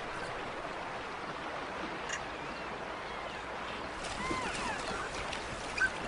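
Steady rush of a fast-flowing river, with a few faint short high calls over it from about two seconds in.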